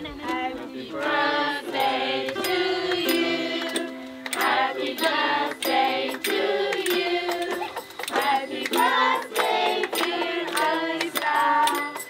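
A group of adults and children singing together to a strummed ukulele, with hand claps.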